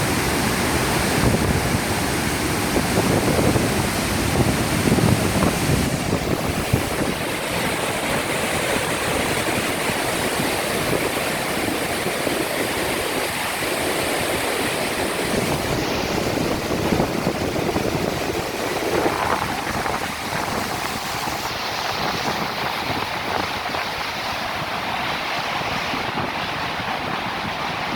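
Steady rush of the falling water at Iguazú Falls, heavier and deeper in the first several seconds.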